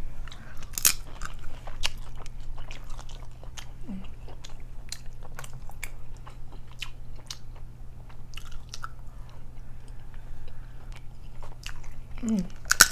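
Close-miked eating of seafood-boil food: biting and chewing with many irregular sharp crunches and clicks.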